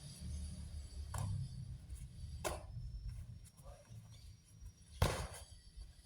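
Three sharp knocks or slaps, the loudest about five seconds in, over a low steady hum: the stamps and strikes of a pencak silat solo routine.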